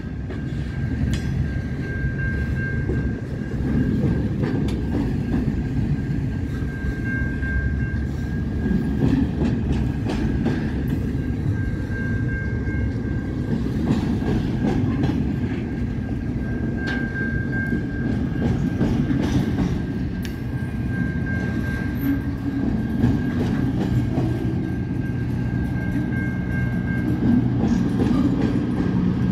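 A long freight train rolls past at speed with a steady rumble, its wheels clicking over rail joints. A thin high whine from the wheels on the rail runs through it, swelling and fading every second or two.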